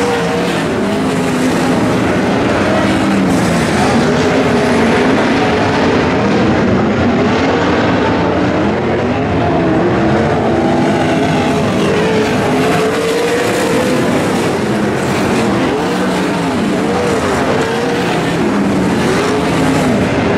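A field of non-wing sprint cars racing on a dirt oval. Several engines run at once, and their notes keep rising and falling over one another.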